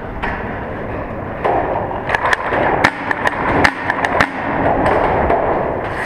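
Paintball markers firing in a rapid, irregular series of sharp pops, starting about a second and a half in, in a large underground cavern, over a steady background hiss.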